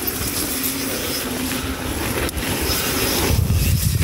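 Mountain bike rolling down a dirt trail, with a steady rush of wind rumbling on the microphone and the tyres running over the ground.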